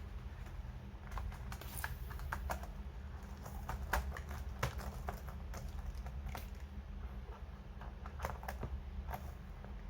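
Irregular light clicks and taps of an HP EliteBook 8440p laptop's plastic parts and keyboard being handled, with the sharpest clicks about four seconds in, over a steady low hum.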